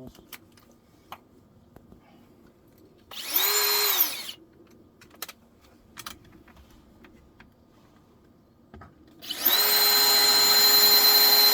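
Cordless drill boring 1/8-inch pilot holes into wood: a short burst of drilling about three seconds in, then a longer run from about nine seconds in, each spinning up to a steady whine, with faint taps in between.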